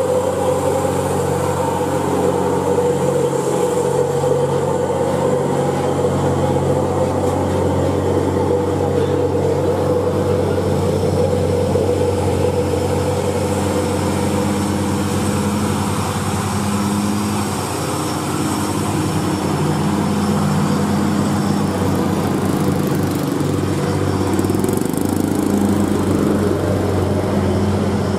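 Heavy diesel engines of loaded Hino 500 tractor-trailers labouring up a hill, one truck passing close after another. It is a steady, deep engine drone whose pitch pattern changes as each new truck comes by.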